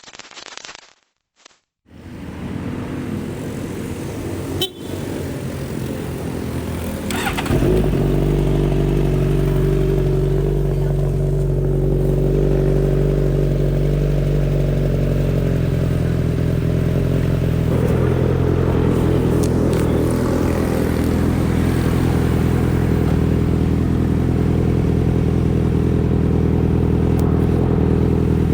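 Suzuki GSX-S1000 inline-four engine running steadily at idle, getting louder about seven seconds in and holding an even, unchanging note after that.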